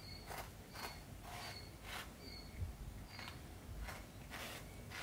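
Mother cat licking her kitten's head, her tongue rasping through the fur in short, faint strokes about twice a second.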